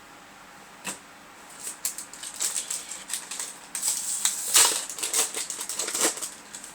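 Crinkling and rustling of a foil trading-card booster pack wrapper being handled and torn open, a quick irregular crackle that builds up about a second and a half in and is loudest past the middle.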